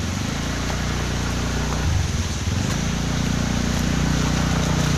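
Motor scooter engine running, its note shifting briefly about two seconds in.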